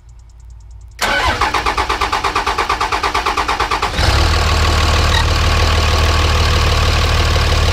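2006 Dodge Ram 5.9 Cummins straight-six diesel cranking on the starter with a fast, even rhythm for about three seconds, then catching about four seconds in and settling into a steady idle. This is the first start after a new Fleece PowerFlo 750 CP3 injection pump was fitted.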